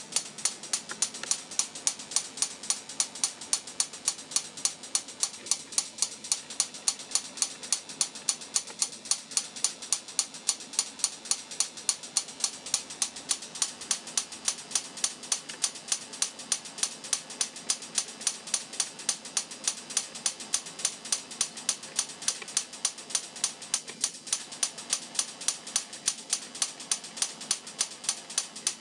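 High-voltage spark discharges snapping at an even rate of about four a second, sharp and crackly.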